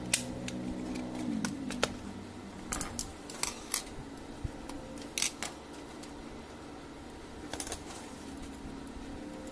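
Scattered sharp plastic clicks and knocks as the plastic housing of an HP LaserJet M4555 fuser assembly is handled and fitted together, over a faint low hum.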